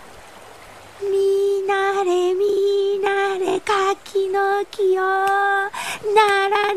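A high voice chanting a sing-song Japanese spell telling a persimmon tree to bear fruit or be cut down with scissors, held on one pitch in short phrases with brief breaks, starting about a second in.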